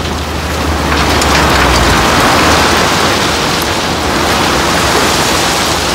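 Crushed-stone railway ballast sliding and pouring out of a tipped dump-truck bed: a steady rushing clatter of stones that builds over the first second and then runs on evenly. A low hum sits under it for about the first two seconds.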